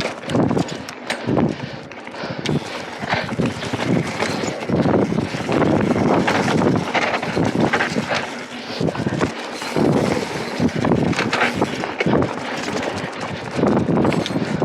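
Mountain bike ridden hard over a rough dirt trail: wind buffeting the rider-mounted action camera's microphone, with uneven surges of noise and many sharp clicks and knocks from the bike rattling over bumps.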